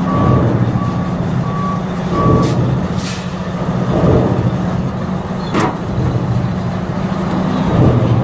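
A heavy vehicle's engine running steadily, with a reversing alarm beeping regularly that stops about two seconds in. A couple of short hisses and a sharp click come in around the middle.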